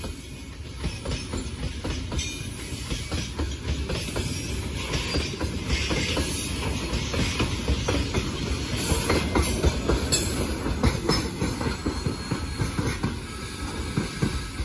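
Freight train of open gondola wagons rolling past: a steady rumble of wheels on rails with repeated clacks over the rail joints, which fades near the end as the tail of the train moves away.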